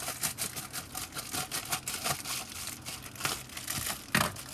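Packaging being torn open and crinkled by hand: a continuous run of crackling and rustling, with a sharper knock about four seconds in.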